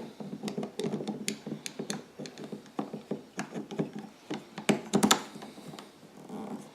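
Hands working on plastic generator parts: irregular clicks and taps, with a louder cluster of knocks about five seconds in.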